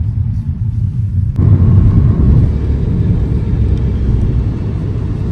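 Steady low rumble of a car on the move. About a second and a half in it changes suddenly to a louder, fuller rumble.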